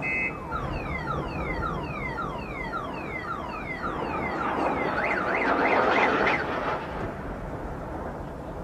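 A car alarm running through its tone cycle: a string of quick falling chirps, about three a second, then a fast up-and-down warble that is the loudest part. It stops about seven seconds in.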